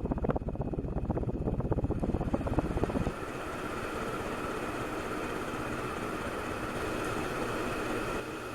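1989 SMC Laguna ceiling fan running on high speed. For about three seconds its airflow buffets the microphone with a fast, low pulsing; then this gives way suddenly to a steadier whoosh of air with the motor's audible hum.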